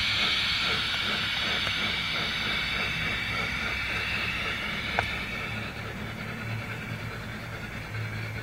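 G-scale model steam locomotive running on garden-railway track: a steady steam hiss with a soft, quick chuffing beat over a low rumble of wheels on rails, growing fainter as the engine moves away. A single sharp click about five seconds in.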